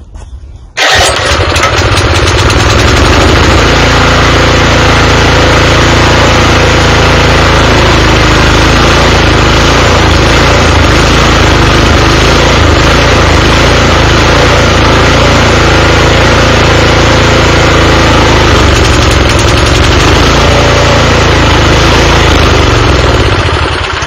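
Craftsman tiller's small overhead-valve engine starts about a second in and runs loud and steady for over twenty seconds, then fades out near the end as it dies, a sign that the carburetor is not getting gas.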